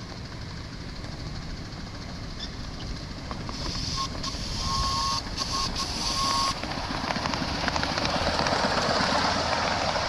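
A small live-steam Conner beam-engine locomotive on 7½-inch gauge track running toward and past, growing louder as it nears. A steady high tone with a hiss sounds for about three seconds near the middle, then a dense rapid rattle of the engine and wheels on the rails takes over as it goes by.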